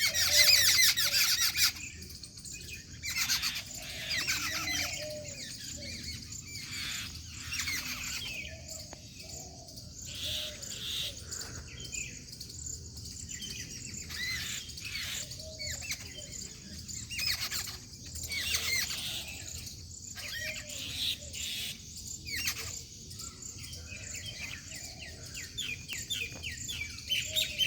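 Many small birds chirping and calling together in a busy chorus of quick, overlapping notes, loudest in the first two seconds.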